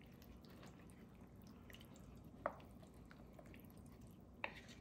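Faint wet stirring of thick soup with a wooden spoon in a slow cooker's crock, with a couple of light clicks about halfway through and near the end.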